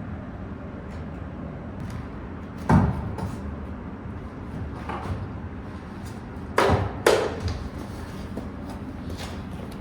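A few knocks and clunks of a large wooden block being worked into place between a jack and a car's engine mount: one loud knock about three seconds in, then a quick pair near the seven-second mark, over a steady low background hum.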